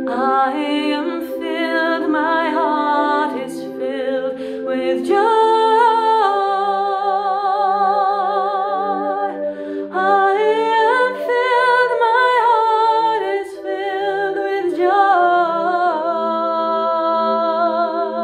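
A woman singing long held notes with vibrato and running ornaments, over steady sustained chords from a small accompanying instrument that change pitch a few times.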